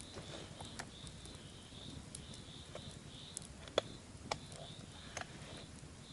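Scattered sharp cracks and snaps, the loudest about four and five seconds in, over a steady high-pitched pulsing drone.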